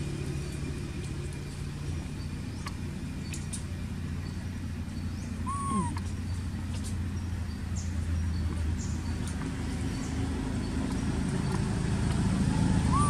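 A steady low rumble of distant road traffic, with a short clear call that rises and falls about six seconds in and again at the very end, and a few faint ticks.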